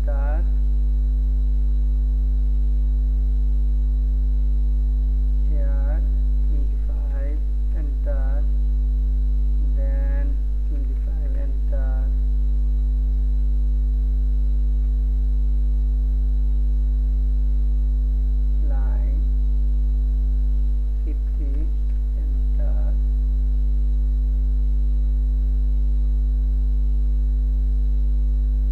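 Steady electrical mains hum with a buzzy row of overtones, picked up on the recording. Faint snatches of a voice come in a few times.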